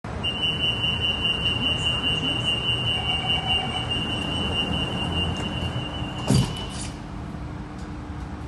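Door-closing warning on a Singapore MRT Thomson-East Coast Line train: a steady high-pitched tone held for about six and a half seconds while the train doors and platform screen doors slide shut. The doors meet with a short thud about six seconds in, and the tone stops just after; the train's low hum goes on.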